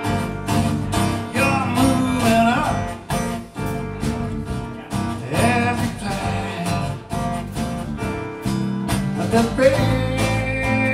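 A live jazz-blues band plays an instrumental passage: acoustic guitar strummed in a steady rhythm under a lead line that bends up and down in pitch, with a chord held steady from near the end.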